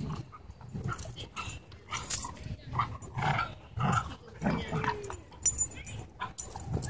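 Dogs at rough play over a rope tug toy: short growls in bursts, with scuffling and rustling throughout.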